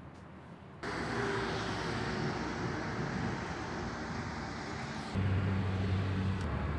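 Road traffic noise that starts abruptly about a second in. About five seconds in, a louder low engine hum from a nearby vehicle joins it.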